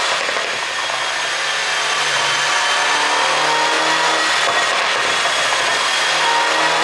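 MINI R56 Cooper S's 1.6-litre turbocharged four-cylinder engine running at a steady, fairly high pitch, holding its note with only slight wander and no pops or crackles.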